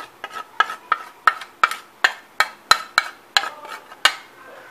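A spoon tapping repeatedly against the edge of a plate, about three sharp clicks a second, knocking chili, turmeric and asafoetida powder off it into a bowl of gram flour; the tapping stops about four seconds in.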